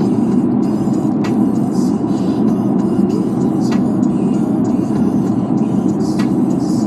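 Steady road noise of a moving car, an even rumble with no change in pitch.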